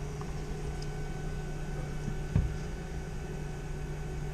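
Steady machinery hum with a constant low drone and a few fixed tones, broken once by a short knock a little past halfway.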